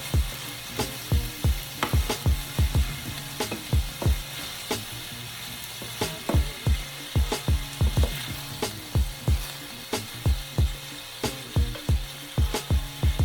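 Vegetables sizzling in a hot frying pan while being stir-fried, with frequent sharp knocks of the stirring utensil against the pan, about two or three a second in uneven bursts.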